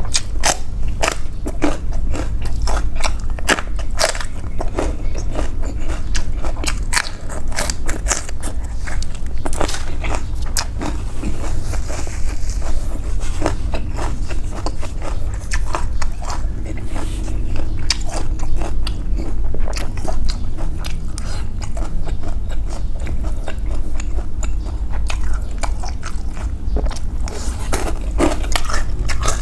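A person eating noodle soup close to the microphone: chewing and biting, with many short, wet clicks and smacks throughout. A steady low rumble runs underneath.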